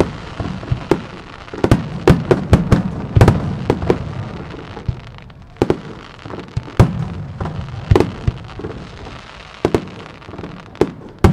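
Aerial firework shells bursting in quick, irregular succession: many sharp bangs, some in clusters, with a low rumble of echoes between them.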